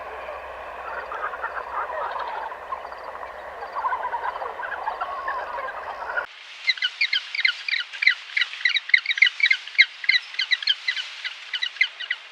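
A flock of birds calling in a dense, overlapping chatter. About six seconds in, it cuts to a rapid, high chirping of many birds.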